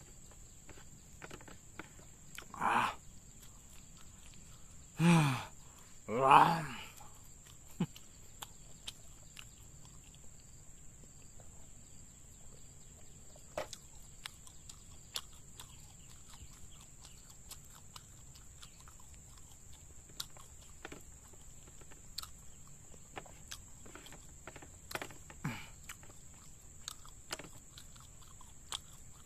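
Small clicks and chewing sounds of a person eating crumbs with his fingers off a plastic tray, over a steady high-pitched insect drone. Three short voice-like sounds fall between about two and seven seconds in and are the loudest things heard.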